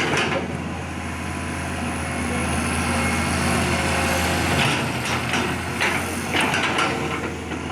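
Excavator engine running steadily, with a few short scraping or knocking noises in the second half.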